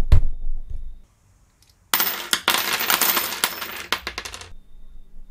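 Two heavy knocks at the start, then, from about two seconds in, a dense clatter of small steel rivet mandrels spilling and jingling onto the bench for about two and a half seconds, ending abruptly.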